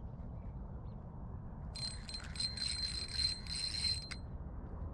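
Spinning fishing reel buzzing with a high steady whine while a hooked fish is being played, for about two seconds starting about two seconds in, then again briefly near the end.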